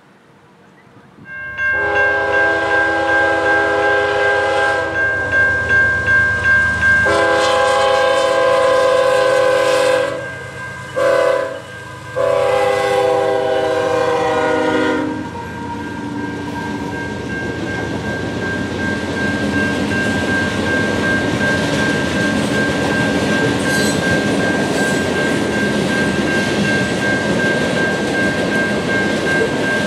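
CSX freight locomotive air horn sounding a chord in long blasts, with one short blast near the end and a final long one, the pattern of a road-crossing warning. It stops about fifteen seconds in. After that comes the steady rumble and clatter of loaded coal hopper cars rolling past.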